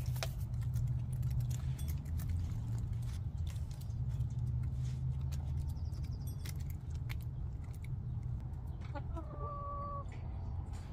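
Hens pecking at the dirt in a pen: scattered sharp clicks over a steady low rumble. Near the end a hen gives one short drawn-out call.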